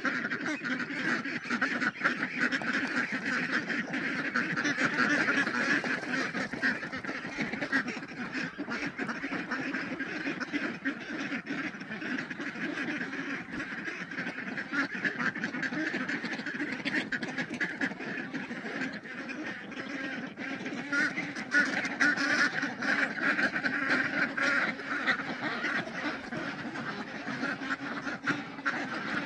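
A flock of ducks quacking and chattering without a break, many calls overlapping.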